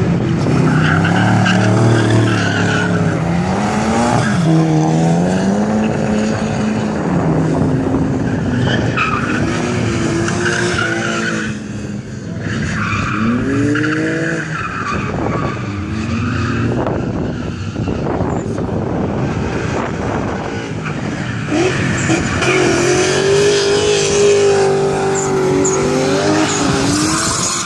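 A drift car's engine revving hard and dropping again and again as it slides through the corners, with its tyres skidding and squealing. The engine note rises and falls in repeated swings, and a long, steadier squeal comes near the end as the car slides through a corner in a cloud of tyre smoke.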